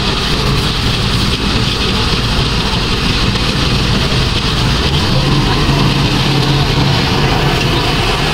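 Diesel engine of a tracked rice combine harvester running steadily close by, its low note shifting slightly about five seconds in.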